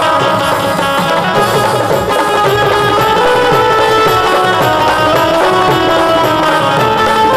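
Instrumental interlude of a live Marathi Bhim geet (Ambedkarite folk song): a steady drum beat under sustained melody notes, with no singing.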